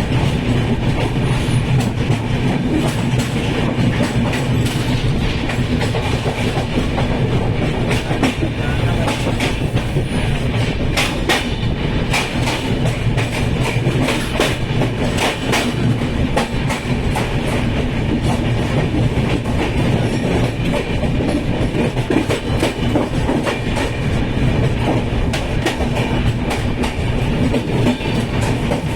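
Train running at speed on the track: a steady rumble with a low hum, and the wheels clicking and clattering over rail joints, more thickly around the middle.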